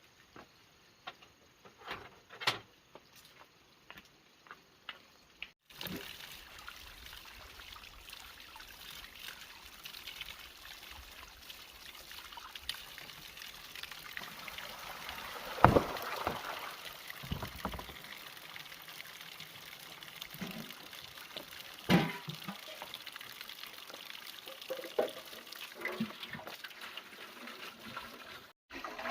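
Water pouring and trickling steadily, with a few sharp knocks and clatters. It is preceded by a few seconds of faint clicks and taps.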